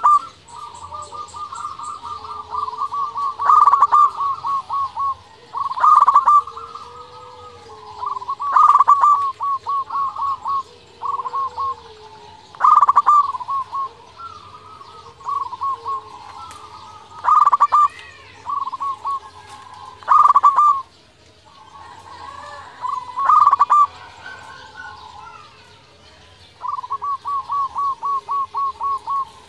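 Zebra dove (local perkutut) cooing persistently: each phrase is a loud opening note followed by a quick run of short, evenly spaced notes, repeated every two to three seconds, with one longer even run of notes near the end.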